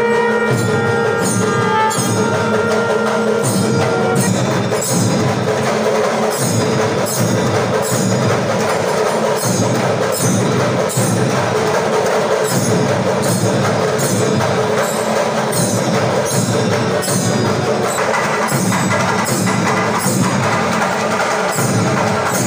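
Temple ritual music: steady rhythmic percussion with bells ringing, and a held horn-like tone in the first few seconds.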